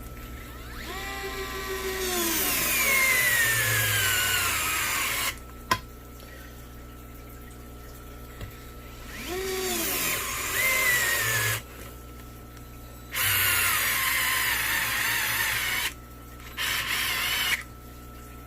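DeWalt DCF682 8V gyroscopic cordless screwdriver driving 2-inch screws into a 2x6 board. It runs in four goes: a long whine that falls in pitch over about four seconds, followed by a sharp click, then two shorter runs of two to three seconds and a brief one near the end.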